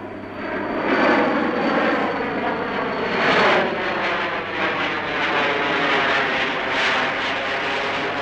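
A de Havilland Comet four-jet airliner flying low overhead, its jet engine noise loud and steady as it passes. The noise swells about a second in and peaks around three and a half seconds, with a sweeping tone as the aircraft goes by.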